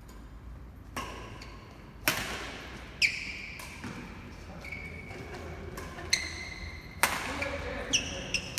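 Badminton rally: several sharp racket strikes on the shuttlecock, the loudest about two and seven seconds in, echoing in the hall. Between the strikes, sports shoes squeak short and high on the court floor.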